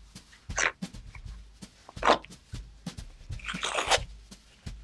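Thin leather layers of a wallet being pulled and ripped apart by hand, edges glued together giving way in about three short ripping sounds, the last one the longest.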